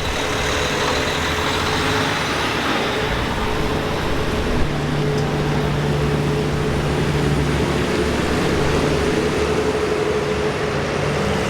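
Heavy vehicle engine running steadily, with a constant hum. There is one brief knock about four and a half seconds in.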